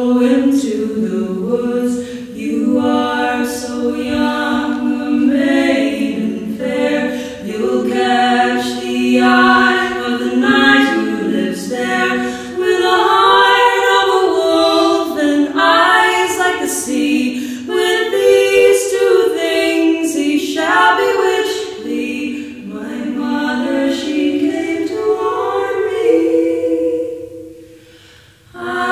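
Two women's voices singing a cappella in two-part harmony, with no instruments. The singing breaks off for a short pause near the end.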